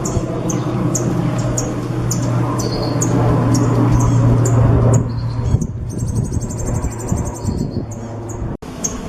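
A songbird singing: short, high chirps repeated about twice a second, breaking into a fast, high rattling trill about six seconds in. A steady low hum runs underneath, and the sound cuts out for an instant near the end.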